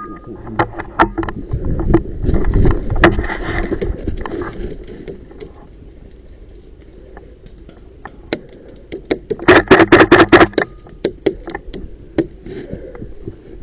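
Airsoft guns firing in the woods: scattered single shots, then a rapid full-auto burst of about a dozen shots lasting about a second, some ten seconds in. A stretch of rustling movement noise comes in the first half.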